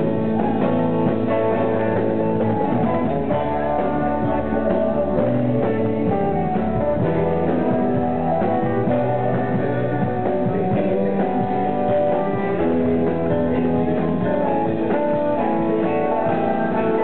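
Live band music: electric guitars playing a steady folk-rock song, with a man singing lead into a microphone.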